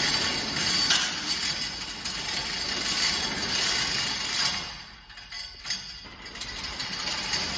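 Hand chain of a chain-hoist overhead shop door rattling as it is pulled hand over hand to lower the heavy door slowly. The clatter is loudest for the first four seconds or so, drops briefly about five seconds in, then goes on more softly as the door nears the floor.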